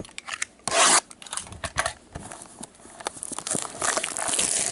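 Cardboard trading-card box, a Panini Rookie Anthology hobby box, being handled and opened by a gloved hand: cardboard rubbing and scraping, with a loud scrape just under a second in and scattered small taps and clicks.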